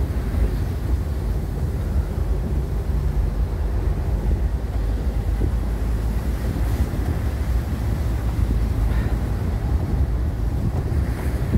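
Isuzu V-Cross pickup driving slowly over a snow-covered track: a steady low rumble of engine and road noise, with wind buffeting the microphone.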